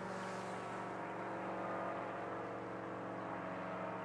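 Engine and propeller of a powered paraglider (paramotor) droning steadily, an even, unchanging hum made of many steady tones.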